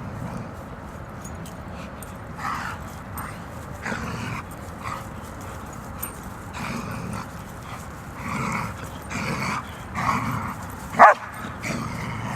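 Dog making a series of short calls a second or so apart, with one sharp, much louder call near the end.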